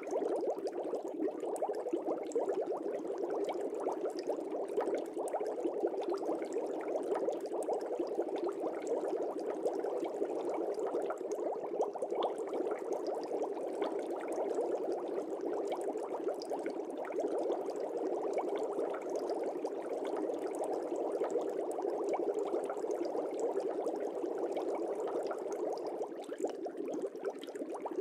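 Air bubbling steadily in an aquarium: a continuous dense stream of small bubbles popping and gurgling at the water surface.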